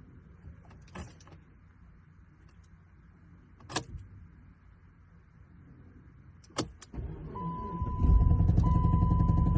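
A few sharp clicks, then the Chrysler 200's engine cranks and starts about seven seconds in and settles into a steady run. A car's warning chime sounds over it in a repeating tone with short breaks.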